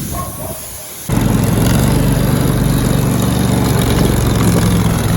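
Riding lawn mower's small engine running steadily with an even hum, coming in abruptly about a second in.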